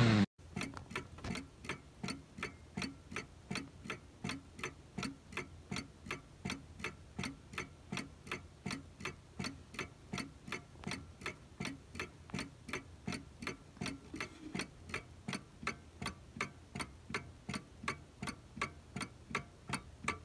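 Plymouth (Seth Thomas) 891 mantel clock movement ticking: a quick, steady tick-tock from the escapement as the pendulum swings. The movement has been freshly cleaned, re-bushed and had its pivots polished, and it is keeping time.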